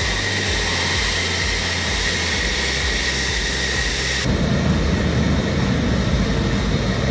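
Jet engines of F-15EX Eagle II fighters, twin General Electric F110 turbofans, running at ground idle: a steady rushing noise with a high whine. About four seconds in the sound changes abruptly to a louder, deeper rumble, closer to a jet rolling past.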